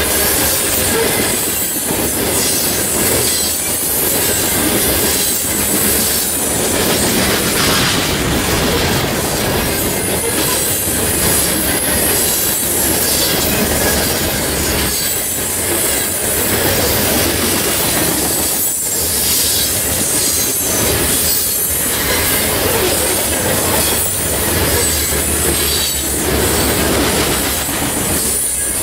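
CSX freight train of covered hopper cars rolling past close by: a steady rumble of steel wheels on rail, with clacking as wheelsets cross rail joints and a thin high wheel squeal over it.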